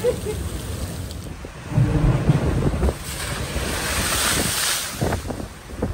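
Storm waves crashing against a seafront wall and washing over the promenade, with a rushing hiss of spray about three to five seconds in. Gusts of wind buffet the microphone.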